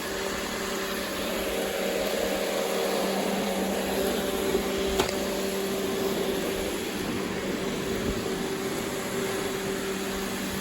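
Robot vacuum running with a steady hum and hiss, with one brief click about five seconds in.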